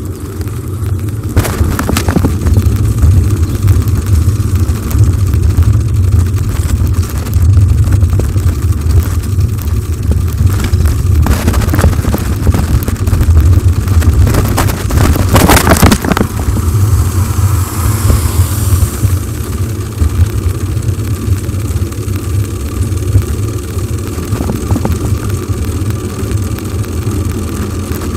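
Wind buffeting the microphone of a camera riding on a moving bicycle, a loud, gusty low rumble mixed with tyre noise on the road. About fifteen seconds in there is a short burst of rattling, and a faint falling hiss follows a couple of seconds later.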